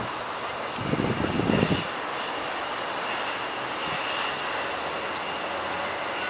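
Steady outdoor background noise picked up by the camera's microphone, with a brief, louder low rumble about a second in.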